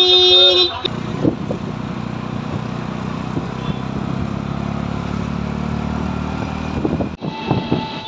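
A vehicle horn sounds loudly and steadily, cutting off just under a second in. Then a motor vehicle's engine runs with a steady drone as it drives along, heard from on board.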